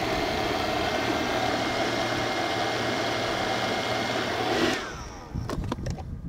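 Countertop food processor blending hummus: the motor runs steadily for nearly five seconds, then is switched off and winds down with a falling whine. A few plastic knocks follow as the lid is taken off the jar.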